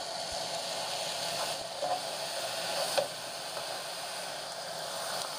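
Marinated beef short ribs sizzling steadily on a hot nonstick pan, with a few faint taps as more ribs are laid down, the sharpest a little past the middle.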